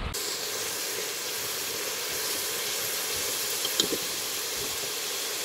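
Steady hiss of food frying in a hot pan, with a single short click about four seconds in.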